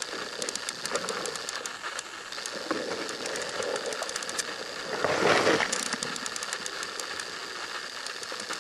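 Underwater sound picked up by a camera while diving: a steady noise bed with many scattered sharp crackling clicks, and one brief louder rushing swell about five seconds in.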